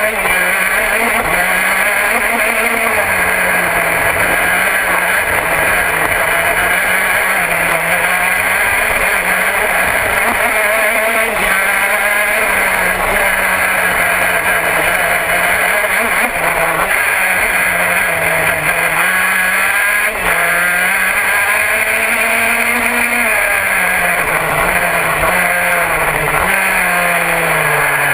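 Vortex 125cc two-stroke engine of a KZ2 gearbox kart at racing speed, heard onboard. Its note climbs and drops again and again through the lap, and falls steeply near the end.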